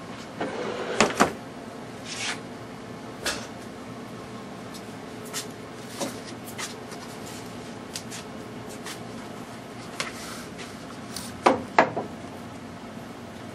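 Scattered knocks and clunks of things being handled and set down, over a steady low hum. The loudest come as a quick pair about a second in and another quick pair near the end, with single lighter knocks between.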